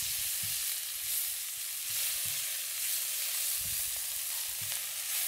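Salmon fillets, ginger and green onion sizzling steadily in hot oil in a wok on high heat, with a few soft knocks and scrapes of a spatula stirring the aromatics.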